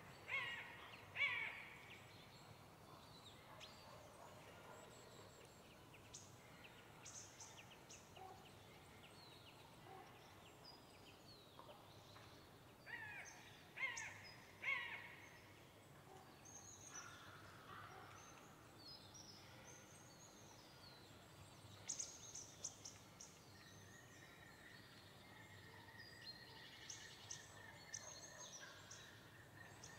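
Crows cawing in short runs of calls, at the very start and again around the middle. High thin chirps from small songbirds are scattered between them over a quiet forest background, with a faint steady high tone through the last few seconds.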